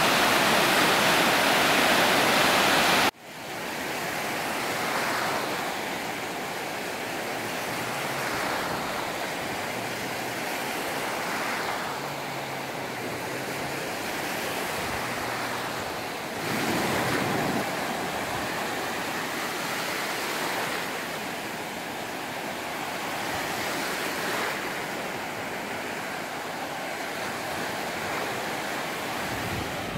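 Small sea waves breaking and washing up a sandy beach, the surf swelling and easing every few seconds. The first three seconds hold a louder, steady rush of wind and water that cuts off suddenly.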